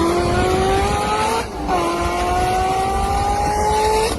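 Car engine accelerating hard through the gears. The pitch climbs steadily, drops at an upshift about a second and a half in, then climbs again until another shift at the very end.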